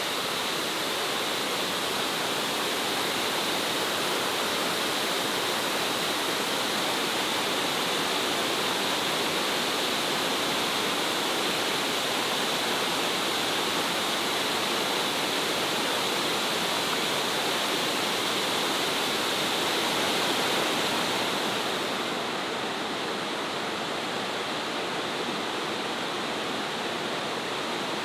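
Steady rush of Shifen Waterfall's falling water, an even, dense hiss; the highest part of the hiss drops away about two-thirds of the way through.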